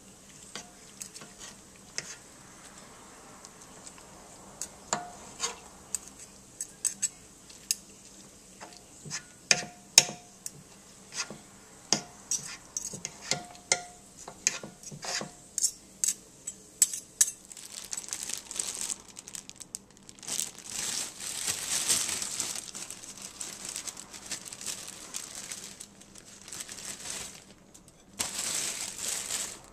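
Two forks clinking and scraping against the Ninja cooker's pot as cooked chicken is shredded, in sharp irregular strikes with a short ring. About eighteen seconds in, plastic crinkling takes over for most of the rest.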